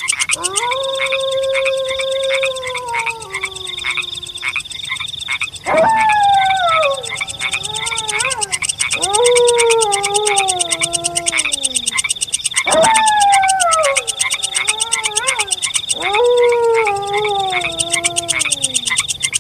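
Wolf howling five times in a row: a long, fairly level first howl, then four that start high and slide down in pitch over a few seconds each. Beneath runs a steady, fast-pulsing night chorus of chirping.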